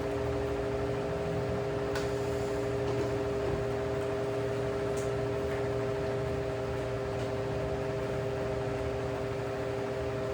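Electric desk fans, a Philco and a Mondial, running steadily: an even motor hum with several steady tones over the rush of air.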